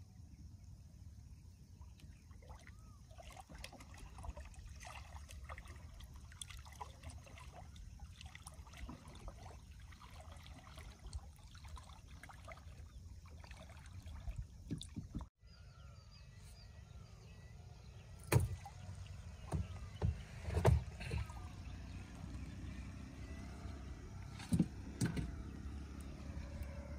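A gill net being hauled by hand out of the water into a small fishing boat: a low steady rumble with small splashes and drips as the net comes in. In the second half, several sharp knocks against the boat.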